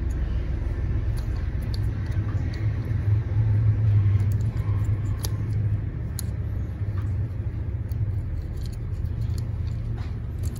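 A steady low rumble, strongest a few seconds in, with scattered small clicks of plastic Lego pieces being handled and pressed together.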